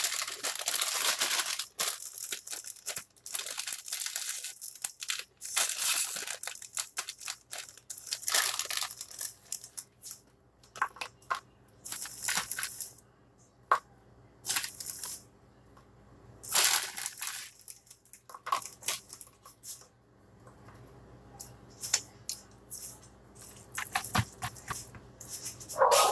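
Plastic packaging crinkling and tearing as it is handled, in repeated short bursts of rustling with pauses between them and a few sharp clicks.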